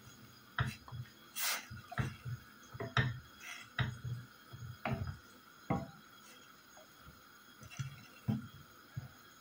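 Wooden spoon stirring apple chunks and herbs in water in a stainless steel pot: irregular soft knocks and splashes against the pot, one or two a second, stopping about a second before the end.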